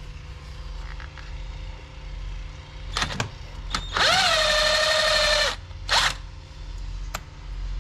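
A power drill with an 11 mm socket spinning a nut off: the motor whines up in pitch for about a second and a half, then stops. Short knocks come just before and just after it.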